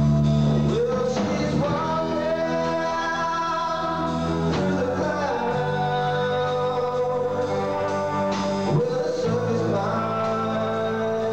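Three-piece rock band playing live: electric guitar, bass guitar and drums, with a male voice singing held, sliding notes.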